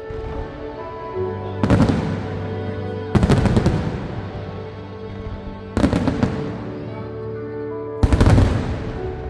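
Fireworks bursting with sharp crackles, four bursts a couple of seconds apart, over music with long held chords.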